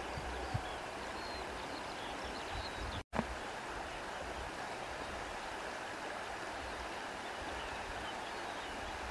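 Steady whir of an industrial flat-bed sewing machine running, with no distinct stitch rhythm. The sound drops out for an instant about three seconds in, then carries on unchanged.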